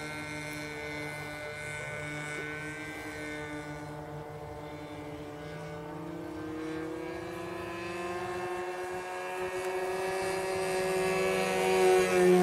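Radio-controlled model airplanes droning overhead: a steady propeller hum whose pitch slowly wanders with the throttle and manoeuvres, growing louder near the end as a plane passes closer.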